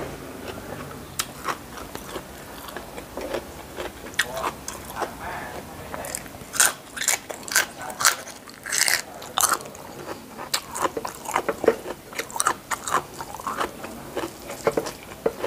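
A person biting and chewing a raw winged bean, crisp crunches in quick succession that come thickest and loudest about six to ten seconds in.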